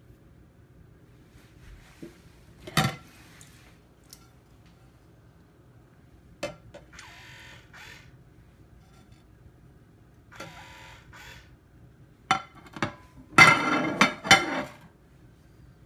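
Automatic soap dispenser's small pump motor whirring briefly twice, each run about a second long, as it is triggered by objects under its sensor. Scattered clicks and knocks, with a louder burst of knocking and rattling near the end.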